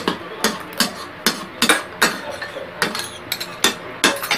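Metal spoons clinking and scraping against ceramic rice and soup bowls while eating, with a sharp clink about every half second.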